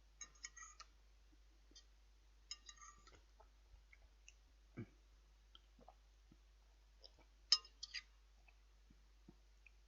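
Faint sounds of someone eating a microwave meal: a few short clusters of clicks and clinks, from cutlery on the food tray and the mouth, with a soft low knock near the middle.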